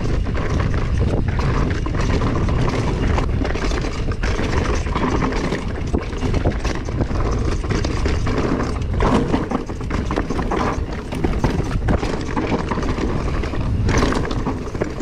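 Vitus Sommet mountain bike riding down a rocky dirt singletrack: a constant rattle and clatter of tyres over stones and the bike shaking over the bumps, over a steady low rumble.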